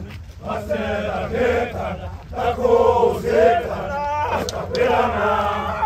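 A group of Zulu men chanting and singing together as they march, with a brief high-pitched call about four seconds in.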